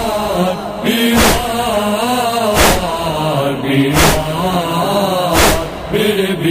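Wordless chanted vocals of a noha lament over a steady beat of sharp matam (chest-beating) strikes, about one every second and a third.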